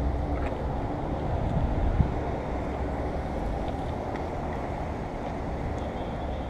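Steady low rumble of outdoor background noise, with one sharp click about two seconds in as plastic trim is pulled off the car.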